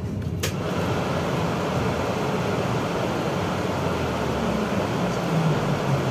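Cabin noise of a BKM 32100D trolleybus under way: a low hum with a steady hiss over it. The hiss starts abruptly with a click about half a second in.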